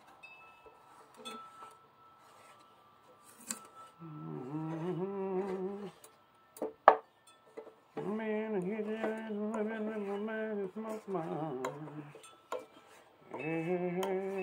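A man singing a wordless tune in long held notes, in three stretches, while a wooden spoon scrapes through a thick molten paste of potassium nitrate and sugar in a skillet. There is one sharp knock of the spoon against the pan about seven seconds in, the loudest sound here.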